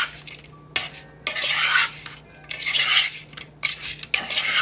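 A utensil clinking and scraping against a bowl in about three short bursts with a few sharp clicks, tossing raw shrimp in salt, pepper and spices.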